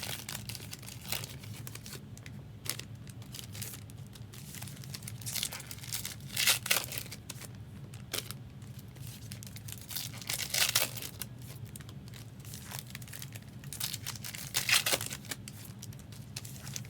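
Trading card packs being opened and handled: foil wrappers crinkling and tearing in separate rustling bursts, the loudest about five, six and a half, ten and a half and fifteen seconds in, over a steady low hum.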